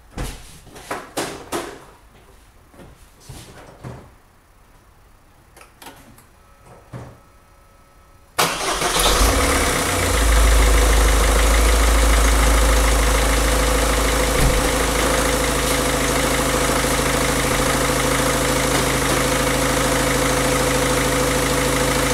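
A few light clicks and knocks, then about eight seconds in a 1.6 HDI four-cylinder common-rail diesel starts suddenly and settles into a steady idle. It is running on injector-cleaning fluid drawn from a bottle connected in place of the diesel supply.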